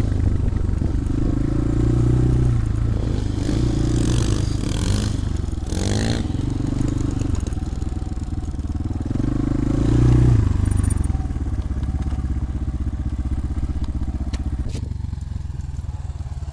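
250 cc single-cylinder enduro motorcycle engine running, the throttle opened and eased off several times, with some clatter.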